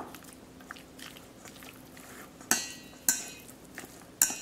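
Chopsticks knocking against a stainless steel mixing bowl while sliced beef is tossed in its marinade. There are four sharp metallic clinks, the middle two ringing on briefly.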